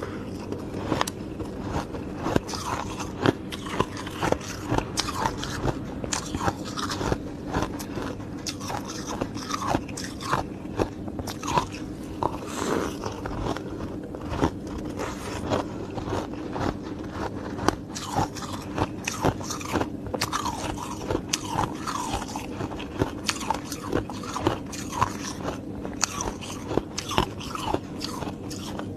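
Ice being bitten and chewed close to the microphone: a continuous run of sharp, irregular crunches and cracks, with a steady low hum underneath.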